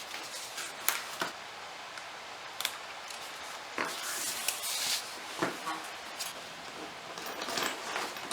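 Leatherworking tools and leather being handled on a workbench: scattered sharp clicks and taps, with a brief scraping rush about four seconds in.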